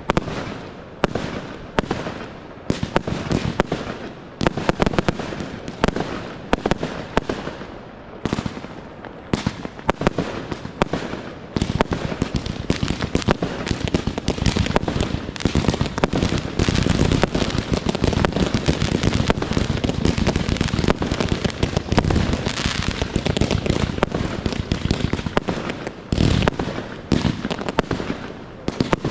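Professional fireworks display: aerial shells launching and bursting with crackling. Separate bangs come in quick runs at first, then about twelve seconds in they merge into a dense, continuous barrage.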